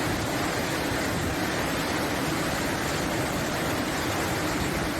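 Rushing floodwater: a steady, loud, even rush of flowing water.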